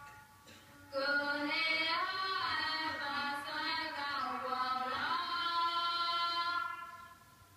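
Singing: one phrase of long held notes with slides between them. It starts about a second in and fades out near the end.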